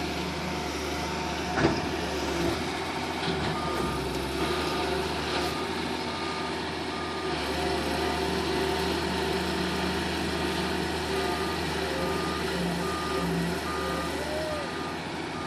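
Wheel excavator's diesel engine running steadily, with a reversing alarm beeping at an even pace, about three beeps every two seconds, in two runs separated by a pause. A sharp knock sounds once about a second and a half in.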